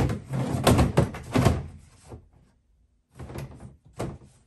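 Plastic water tanks knocked and shuffled into the cabinet of a portable shampoo bowl: a run of bumps and scrapes for about two seconds, then two more knocks near the end.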